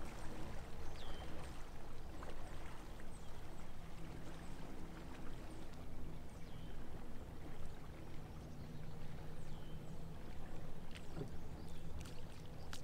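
A Chaparral 276 SSX bowrider's engine running at an easy cruise, heard at a distance across the lake as a steady low drone over water noise. A few short bird chirps come through, and a few light clicks near the end.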